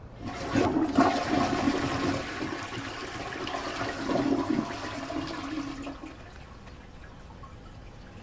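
A toilet flushing: a loud rush of water starting about half a second in and dying away about six seconds in.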